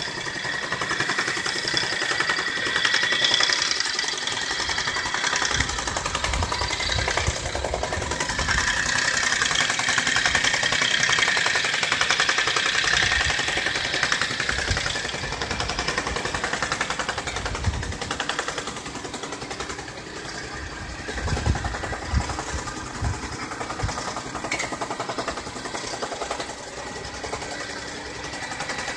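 Roadwork machinery running: a small engine-driven machine with a fast, steady rattle over the engine of a mini excavator.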